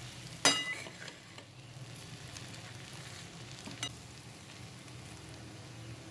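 Okra masala frying in a metal pan, sizzling softly as a metal spatula stirs and scrapes it. A sharp ringing clang of spatula on pan comes about half a second in, and a lighter knock near four seconds.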